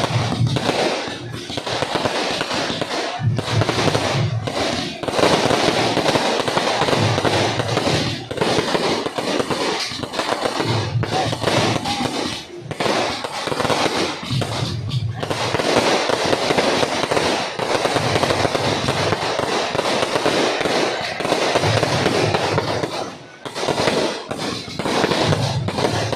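Fireworks display: aerial shells and firecrackers going off in a dense, continuous crackle of bangs, with a few short lulls.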